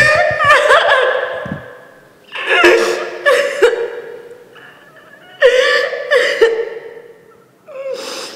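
A woman crying hard: loud, wavering sobs in four bouts a couple of seconds apart, with gasping breaths between them.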